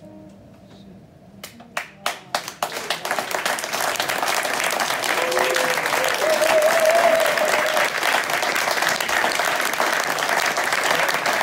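The last acoustic guitar chord rings out, then the audience starts clapping: a few single claps about a second and a half in, swelling within a couple of seconds into full, steady applause. A voice calls out above the clapping in the middle.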